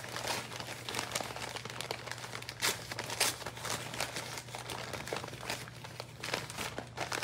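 Packing material crinkling and crackling in irregular bursts as a shipped orchid is unwrapped, over a steady low hum.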